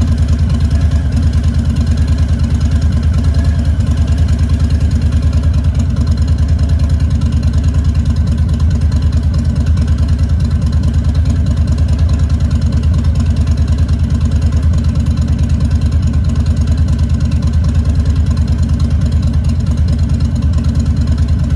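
Harley-Davidson Twin Cam V-twin engine idling steadily with an even, rapid low pulsing, left running just after a fresh oil and filter change to circulate the new oil.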